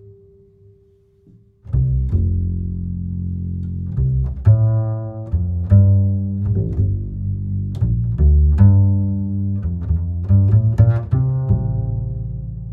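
Background instrumental music with low, plucked and bowed string notes. It starts about two seconds in after a quiet opening.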